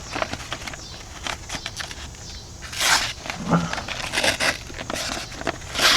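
Knife blade slicing through printer paper: crackling and rustling of the sheet, with two louder hissing cuts, one about halfway through and one near the end. It is a paper-cutting test of a freshly sharpened edge.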